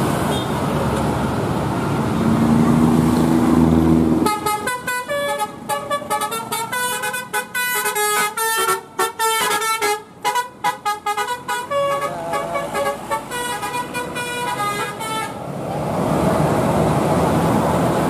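Road and bus engine noise. About four seconds in, a bus's basuri telolet horn plays a quick melody of short, changing notes for about eleven seconds, then stops and the road noise carries on.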